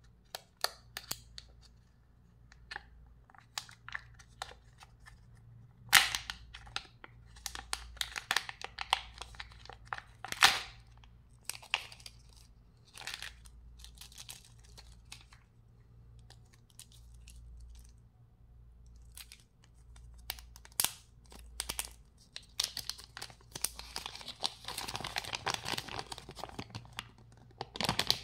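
Kinder Joy packaging handled by hand: the foil lid is peeled and plastic crinkles, with scattered sharp snaps and clicks, the loudest about 6 and 10 seconds in. Near the end a paper leaflet rustles and crackles steadily as it is unfolded. A low steady hum runs underneath.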